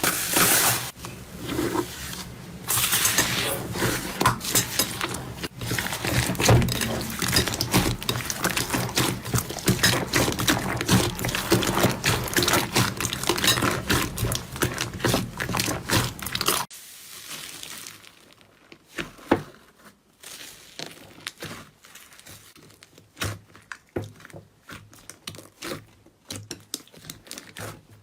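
Slime being pressed and stretched, giving a dense run of crackling clicks and pops. About two-thirds of the way through it cuts abruptly to a much quieter stretch of sparse, separate pops.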